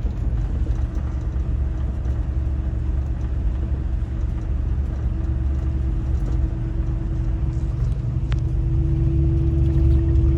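Motor vehicle engine running steadily: a low rumble with a constant hum that grows a little louder in the second half.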